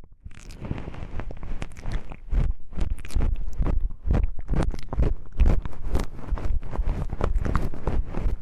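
Wooden knobs handled and tapped close to the microphone: a dense, irregular run of sharp clicks and knocks.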